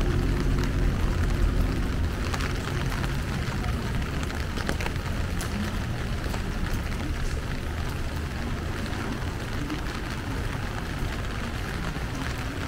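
Steady rain falling, with many small drop ticks, over a low rumble of street traffic that is loudest in the first couple of seconds and then eases.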